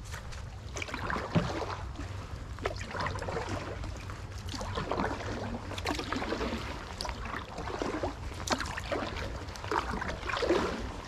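Paddle strokes in floodwater: the blade splashes in and out at an irregular pace, with drips and small clicks, over a steady low rumble.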